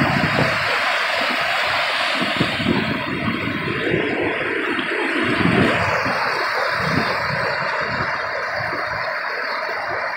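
Steady rushing of water running high after heavy rain, with irregular low rumbling surges underneath.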